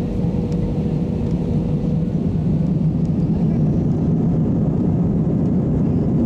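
Airbus A320 cabin noise while the jet rolls along the runway: a loud, steady, deep rumble of engines and wheels, with a faint steady whine that fades about two seconds in.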